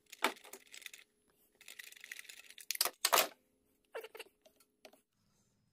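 Light clicks, scrapes and metal clinks of a spark plug socket and extension as the old spark plug is drawn out of cylinder 1, with two sharp clicks about three seconds in.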